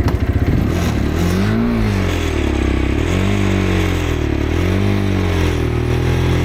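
Road motorcycle engine with an even pulsing beat, then revved up and down in about four throttle blips.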